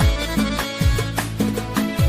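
Background music with a steady beat of deep, falling drum hits under layered melodic instruments.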